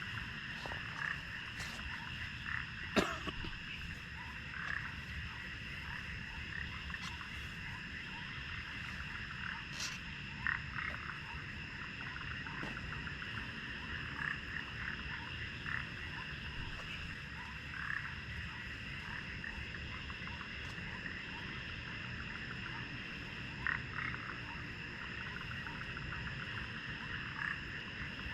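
Frogs calling in a steady night chorus, with short croaks repeating over a continuous high trill and a low steady rush beneath. A few sharp clicks stand out, the loudest about three seconds in.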